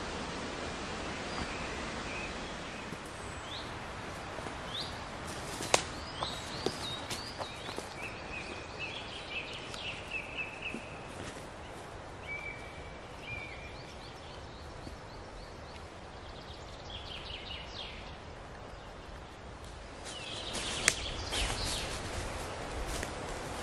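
Forest ambience: a steady hiss of wind in the trees, with small birds calling in short chirps and trills through the middle. Near the end, louder rustling footsteps in dry leaf litter with one sharp click.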